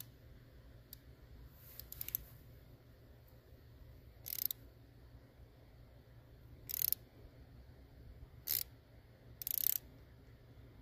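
Socket ratchet clicking in five short bursts as its handle is swung back on the flywheel nut, turning a four-stroke engine's crankshaft over by hand to find top dead center.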